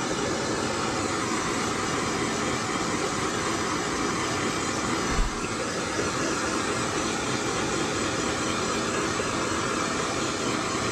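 Small handheld gas torch with its flame lit, hissing steadily, with a brief bump about five seconds in.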